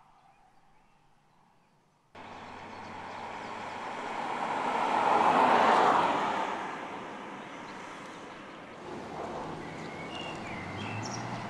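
BMW 6 Series Coupé (F13) driving past: engine and tyre noise that swells, is loudest about four seconds in, then fades. It is followed by steadier running noise as the car passes again. It starts with the faint, fading sound of the car moving away.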